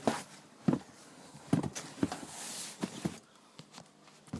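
Cardboard sneaker box being opened and handled: several sharp knocks and taps, with a stretch of paper rustling about two seconds in.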